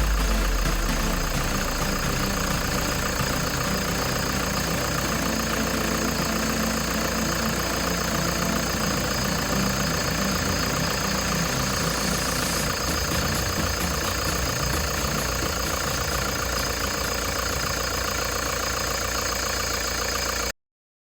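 Toyota HiAce 200-series diesel engine idling steadily, its speed having just settled down. The audio cuts off abruptly near the end. This is the engine that the owner reports is making an abnormal noise from a failing alternator.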